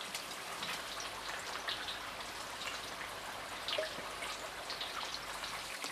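Battered pork pieces deep-frying in hot oil during their first fry: a steady sizzling crackle.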